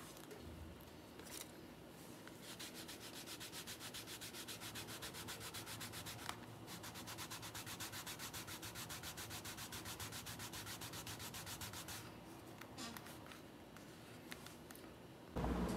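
Leather wallet edge being burnished by hand with a canvas cloth: rapid, even back-and-forth rubbing strokes, several a second, for about ten seconds with a brief break midway. The rubbing then stops, and a louder steady noise cuts in suddenly near the end.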